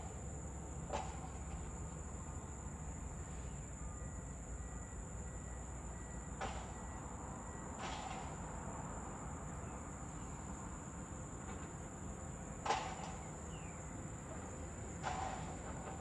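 Distant earthmoving machinery at work: a steady low engine rumble, broken by about five sharp clanks with a short ring, the loudest about three-quarters of the way through. Insects keep up a steady high-pitched buzz.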